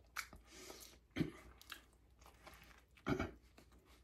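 A person chewing and biting food close to the microphone, with small wet clicks throughout and two louder bites, about a second in and about three seconds in.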